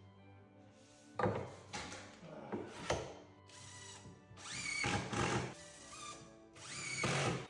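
A few knocks on a kitchen base cabinet, then a cordless drill-driver running in two short bursts, each with a rising whine, driving screws into the cabinet side. Background music plays throughout.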